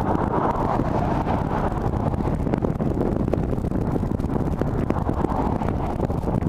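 Wind rushing and buffeting over the microphone, with road and tyre noise from a car travelling along a highway, steady throughout.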